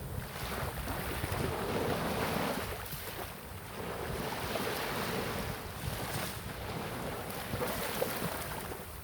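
Sea waves washing in and drawing back, swelling about three times, with wind buffeting the microphone as a low rumble underneath.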